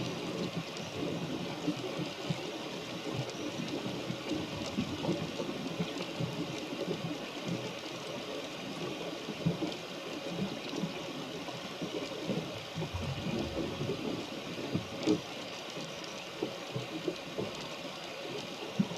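Rain and water washing around a small wooden sailboat: a steady wash with many small, irregular taps and splashes.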